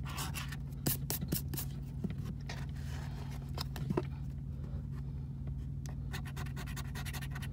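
A coin scratching the coating off a scratch-off lottery ticket in short, quick strokes, pausing for a couple of seconds midway. A steady low hum runs underneath.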